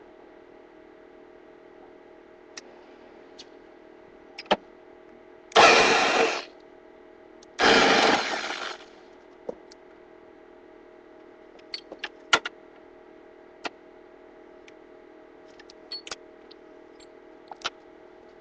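Two short bursts of a power tool, each about a second long and tailing off as it stops, with scattered sharp clicks and clinks of tools and parts being handled, over a steady faint hum.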